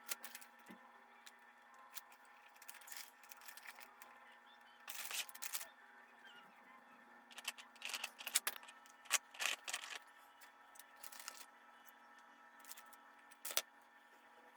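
Faint scattered clicks and short rustling scrapes of things being handled, with a cluster of them in the middle, over a steady low electrical hum.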